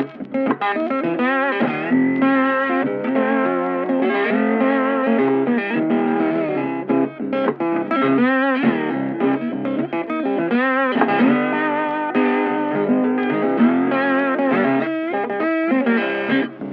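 Background music led by electric guitar, with a few wavering, bent notes.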